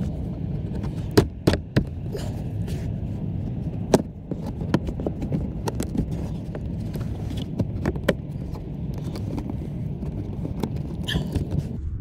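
Hands working on plastic dashboard trim and wiring inside a car: scattered sharp clicks and taps, the loudest a little over a second in and at about four seconds, over a steady low hum.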